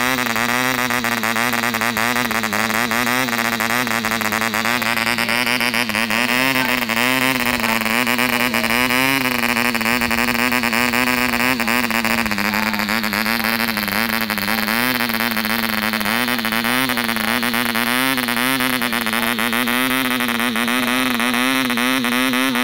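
Taifun Hobby 0.98 cc model diesel engine running steadily on a test stand, turning a 7x4 propeller, its pitch wavering slightly up and down. The engine is new and tight, so it is being run rich and below top revolutions to break it in.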